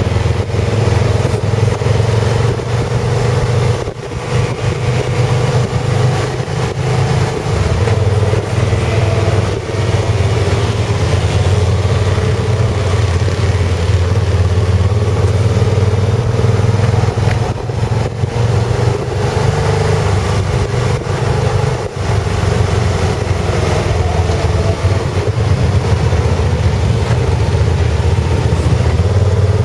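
Motorcycle ridden at low town speed, heard from the rider's seat: its engine running steadily under wind and road noise, easing off briefly a couple of times.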